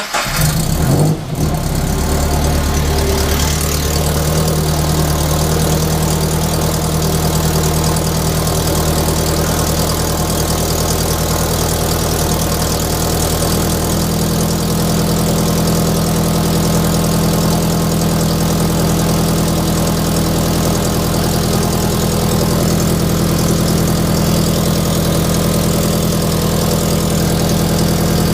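Scion FR-S flat-four engine fitted with an unequal-length aftermarket header, starting and then idling steadily. It runs with an exhaust leak at the header's overpipe, and the idle note settles slightly lower-toned about fourteen seconds in.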